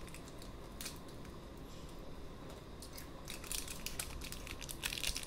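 Light clicks and crinkles of small plastic being handled in the fingers, coming faster and louder from about three seconds in.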